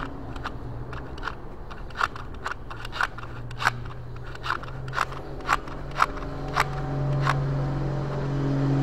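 Electronic throttle body's butterfly plate pushed open by hand and snapping back against its stop, about a dozen sharp clicks roughly twice a second, as it is checked for the stuck-open fault behind code P2111. A steady low hum runs underneath and grows louder near the end.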